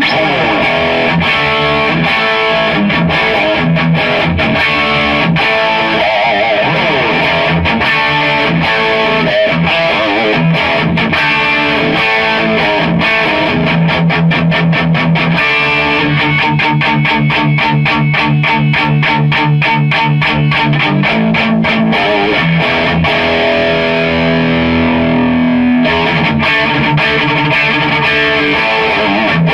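Electric guitar played through a Blackstar amp head and a Marshall MG 4x12 cabinet loaded with Celestion G12T-75 speakers, picked up by the camera's own microphone rather than a miked cab. The guitar plays loud riffs and ringing chords, with a run of fast repeated picked notes about halfway through.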